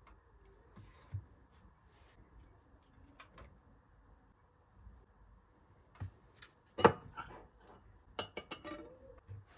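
Kitchenware being handled: scattered light clicks and knocks, with one sharp knock about seven seconds in and a quick run of clicks shortly after.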